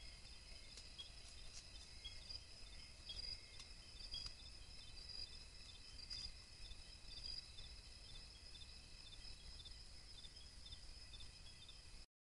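Faint night insect chorus: steady high-pitched chirring in a few bands with rapid repeated chirps, over low hiss. A few faint ticks are heard, and the sound cuts off suddenly near the end.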